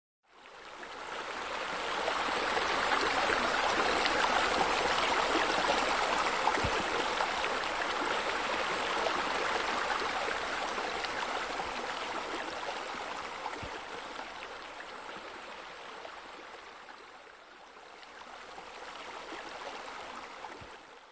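Steady rush of running water, fading in at the start, dipping about three-quarters of the way through, then swelling again before it cuts off.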